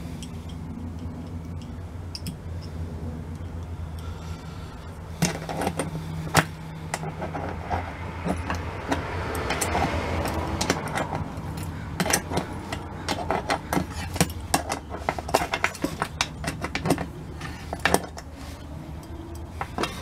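Irregular metal clicks and clinks of an adjustable wrench, nuts and lock washers against a steel switch panel as toggle switches are fastened in, more frequent in the second half, over a steady low hum.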